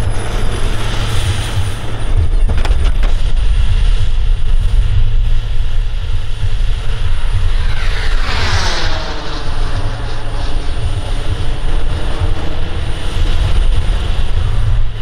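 Xicoy 132 model jet turbine running as the RC F-35A rolls out and taxis on the runway: a deep steady rush with a thin high whine on top. About halfway through, a set of tones sweeps down in pitch over a couple of seconds and then holds steady.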